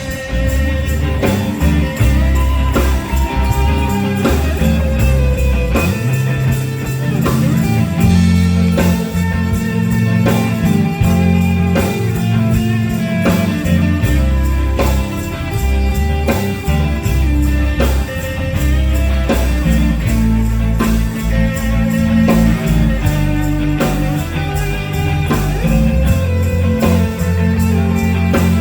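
Gospel band playing an instrumental passage: guitar over bass and drums with a steady beat.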